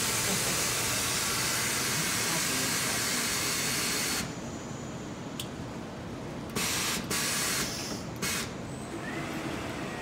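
Compressed air hissing from a pneumatic tire-changing machine as its controls are worked: a steady hiss for about four seconds that cuts off sharply, then three short blasts of air.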